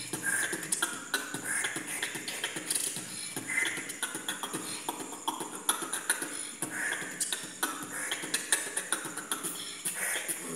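Beatboxing: one person making fast, dense percussive mouth sounds, sharp clicks and snare-like hits mixed with short voiced bass and hum tones, in an unbroken rhythm.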